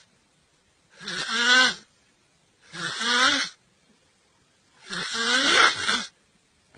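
A person snoring loudly: three snores, each about a second long with a pitch that rises and falls, separated by silent pauses of a second or so.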